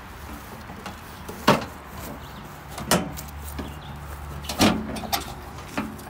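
The hood of a 1989 Dynamark 11/36 lawn tractor being lowered and shut: three sharp knocks about a second and a half apart, the first the loudest, followed by a few smaller clicks near the end.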